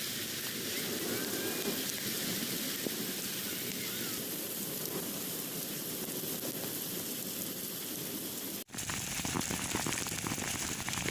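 Heavy rain falling steadily. About eight and a half seconds in, the sound drops out for an instant and comes back with many sharp ticks of drops striking a surface.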